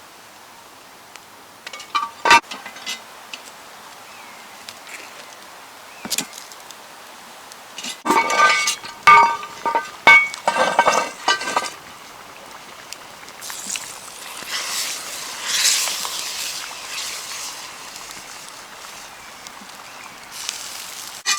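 Metal clinking against a cast-iron Dutch oven: single strikes, then a quick cluster of ringing clinks in the middle, followed by a few seconds of soft hissing.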